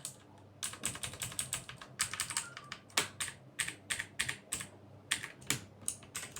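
Typing on a Torima TK05 mechanical gaming keyboard with clicky blue switches: quick runs of keystrokes, then single key presses at an uneven pace.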